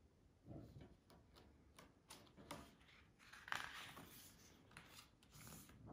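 Near silence broken by faint rustles and light taps as a page of a stiff-paged picture book is turned, the loudest a little past halfway.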